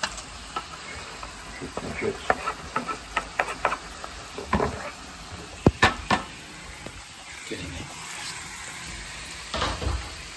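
Meatballs, onions and chopped vegetables sizzling in an enamelled casserole pan, with a string of light knocks and scrapes as the chopped celery and tomatoes go in. Two sharp clacks come about six seconds in.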